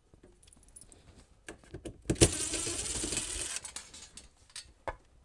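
Cordless drill running for about a second and a half, starting with a sharp click, with scattered light clicks and small metallic rattles before and after.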